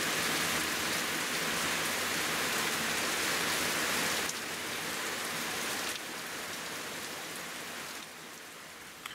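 Torrential rain drumming on a tent's thin fabric, heard from inside the tent, a dense steady downpour. It gets quieter in steps over the last few seconds.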